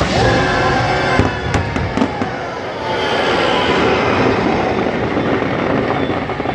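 Fireworks going off during a theme-park fireworks show, a dense rumble with several sharp cracks about one to two seconds in, with the show's music playing underneath.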